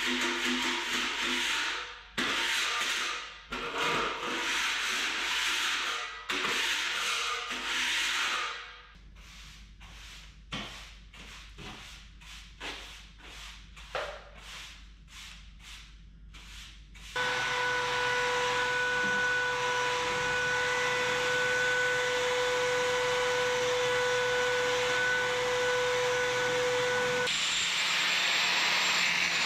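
Broom bristles scraping across a dusty concrete subfloor in repeated sweeping strokes, loud at first and then lighter, about two strokes a second. About seventeen seconds in, an electric motor starts and runs steadily with a whine, and near the end its sound changes to a harsher, higher one.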